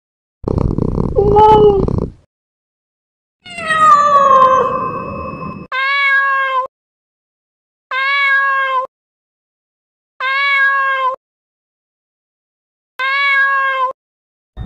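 Cat meowing in separate calls: first a harsh, rough call, then a long meow falling in pitch, then four short, identical meows about two seconds apart.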